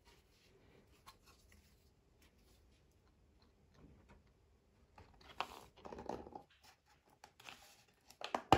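3D-printed plastic model parts being handled and pushed into a plastic model shell: faint rubbing and scraping, with light clicks and knocks. A sharp click near the end is the loudest sound.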